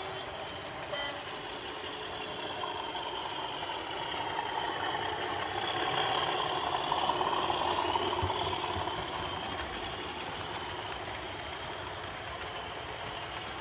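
OO gauge model train running on the layout, its motor and wheels growing louder as it comes close about six to eight seconds in, then fading again.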